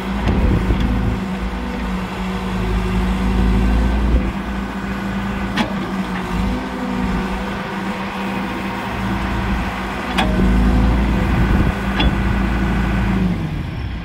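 John Deere 410G backhoe loader's diesel engine running steadily while the backhoe boom and bucket are worked, the engine note swelling and easing with the hydraulic load. A few sharp metallic clicks break in about halfway and near the end.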